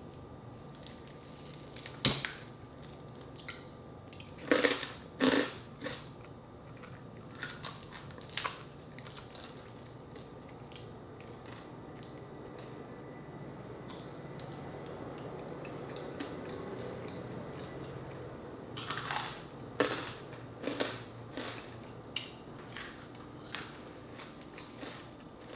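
Close-up eating sounds of crispy pata, deep-fried pork leg: irregular sharp crunches and crackles of the fried skin as it is pulled apart, bitten and chewed, with clusters of crunching about five seconds in and again near twenty seconds.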